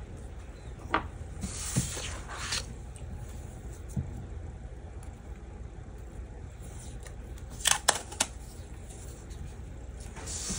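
Quiet handling of paper pages and a roll of washi tape: scattered soft rustles and clicks, with a cluster of sharp clicks about eight seconds in and a short rasp near the end as tape is pulled off the roll.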